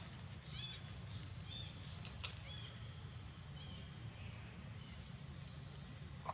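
Forest ambience: short high chirping calls repeating about once a second, a steady thin high whine, and one sharp click a little over two seconds in.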